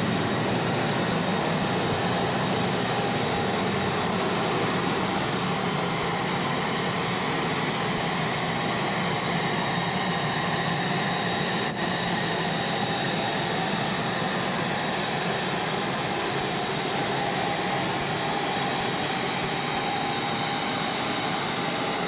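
Steady airliner cabin noise: a constant rush of engines and airflow with a few faint, unchanging whines.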